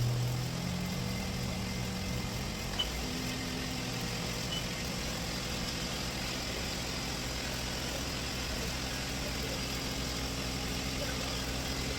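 An engine idling steadily with a constant low hum, with one small click about three seconds in.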